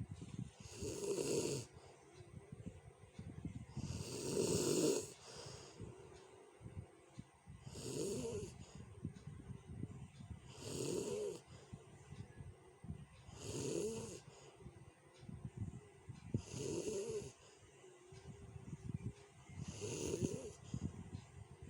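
A sleeping person snoring roughly and loudly, a rasping snore about every three seconds, seven in all.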